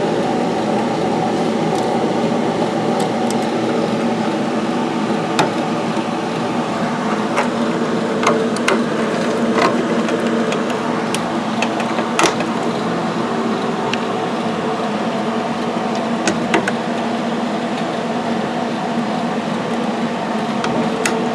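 Steady machine hum made of several tones, with scattered sharp clicks and light knocks as cable connectors are handled and plugged in.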